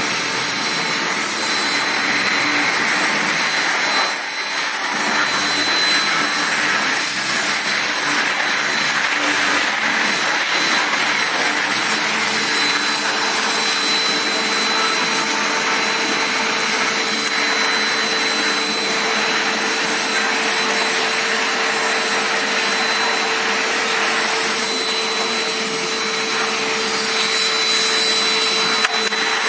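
Vacuum cleaner running steadily: an even rush of air with constant high whining tones from the motor.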